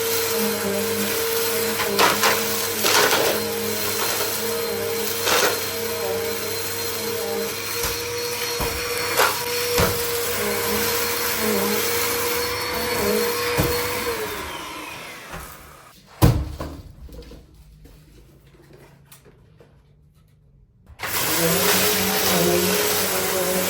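Bissell CleanView compact vacuum cleaner running steadily with a few sharp knocks. About two-thirds of the way through it is switched off and the motor winds down, with a loud click. After a few seconds of quiet it starts again, the motor rising back to speed.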